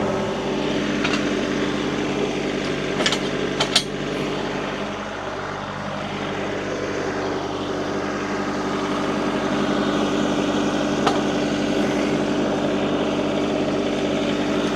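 Compact tractor engine running steadily, with a few sharp clanks a few seconds in and one more later on.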